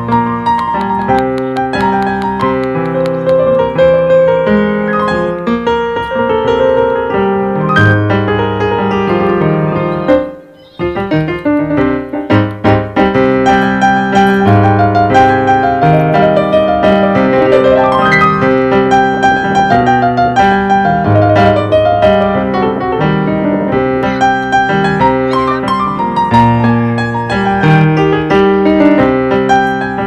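Background piano music: slow chords and a melody, with a brief break about ten seconds in.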